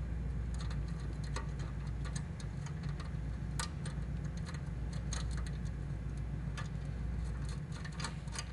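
Ratchet wrench clicking in short, irregular runs as the heat-shield support bolts are tightened, over a steady low hum.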